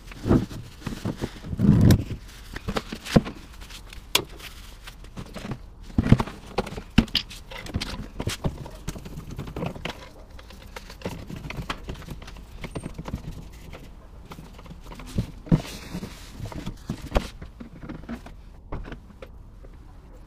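Irregular knocks, clatters and thumps of tools and plastic oil containers being handled and packed away, with a heavier thump about two seconds in.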